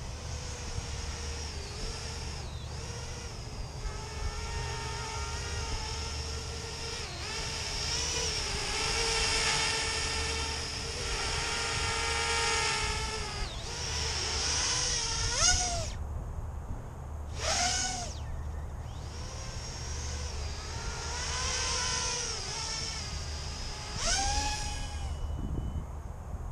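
Small brushless motors and propellers of a 3D-printed 210-size FPV quadcopter whining in flight, the pitch wavering with the throttle. Three sharp rising whines, about two-thirds through, again two seconds later and near the end, as the throttle is punched. A steady low rumble underneath.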